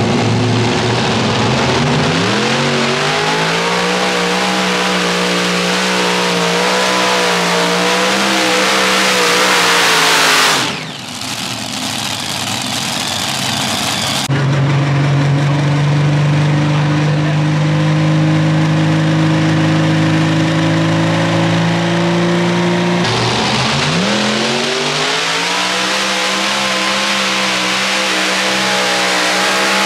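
Multi-engine modified pulling tractor, its supercharged engines at full throttle hauling a pulling sled. The engines climb in pitch about two seconds in, hold a steady high note, then drop off sharply about a third of the way through. After abrupt cuts, another run holds a steady note, and a further run climbs the same way near the end.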